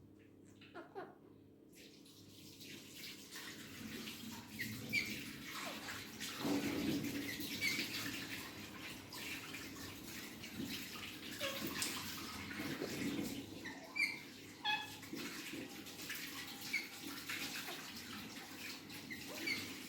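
Steady rushing water sound with many short, high chirps of small birds scattered through it.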